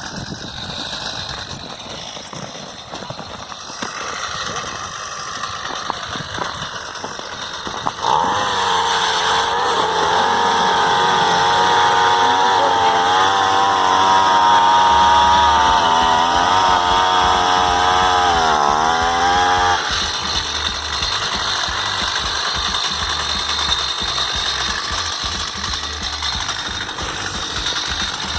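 Gasoline-powered ice auger. Its engine runs slowly, then about eight seconds in revs up and holds high while the bit bores into the lake ice. The pitch wavers and sags under the load, and about twenty seconds in it drops back to a low run.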